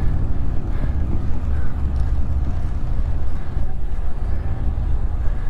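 Steady wind rumble on the microphone of a camera riding on a road bike at speed, mixed with the noise of nearby road traffic.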